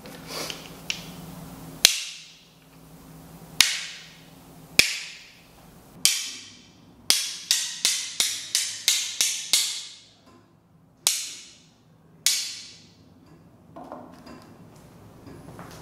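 Sharp cracks made with the hands, each ringing on briefly in the room. Five come singly about a second apart, then a quick run of about seven at roughly three a second, then two more single cracks.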